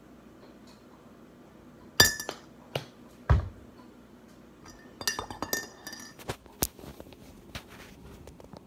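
Sharp clinks and knocks of glass and ceramic kitchenware set down and handled on a granite countertop: a few separate clinks, then a heavier thud about three seconds in, then a run of small quick taps and clinks.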